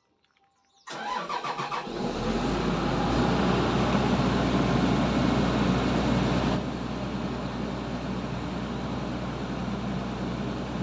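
Excavator diesel engine starting: it cranks about a second in with a quick pulsing, catches and runs steadily and loudly, then settles to a lower, steady run about six and a half seconds in.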